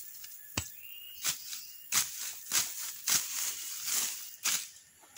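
Koret weeding blade hacking and scraping through grass and weeds into the soil, a rustling chop about one and a half times a second. The blade is not yet sharpened.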